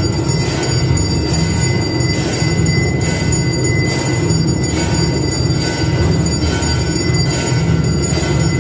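Temple aarti accompaniment: bells ringing and drums beating together in a dense, steady rhythmic din, with strokes about twice a second over a continuous ringing.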